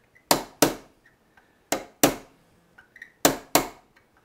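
Hammer tapping a 3/32 steel nail set, metal on metal, to sink a nail head below the surface of a maple chair leg: six sharp taps in three pairs, just over a second between pairs.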